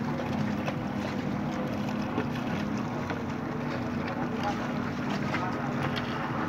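Wind buffeting the microphone over sea water lapping against shore rocks, with a steady low motor hum underneath, such as a boat engine.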